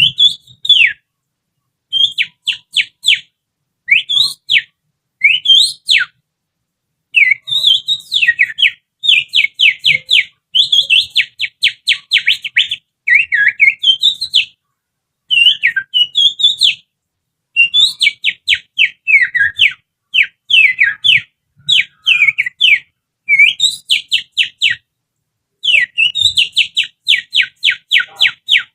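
Finger whistle imitating an oriental magpie-robin's (kacer's) song: phrases of rapid, sharp, high whistled notes, many sweeping downward, broken by short pauses. It is a lure call meant to provoke a caged kacer into singing.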